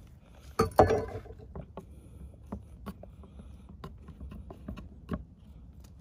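Chef's knife and hands working on a wooden cutting board: a loud knock with a brief metallic ring about a second in, then scattered light taps and knocks as cut pieces are moved and set down on the board.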